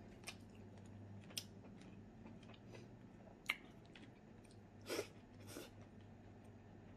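Quiet close-up eating sounds: faint chewing and a few short mouth clicks, with two louder wet smacks about five seconds in as a handful of rice is eaten by hand.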